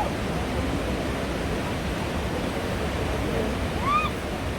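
Steady rushing noise of Snoqualmie Falls, a 268-foot waterfall plunging into the river gorge. About four seconds in, a short high-pitched call rises and falls over it.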